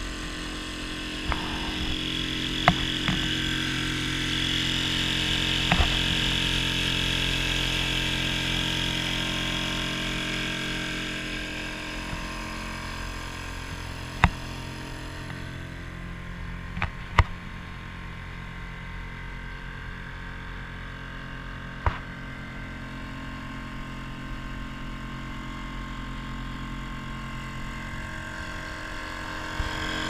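Small tiller outboard motor running steadily, pushing the boat along, with a rushing hiss that is stronger in the first dozen seconds. A few sharp knocks on the boat stand out now and then.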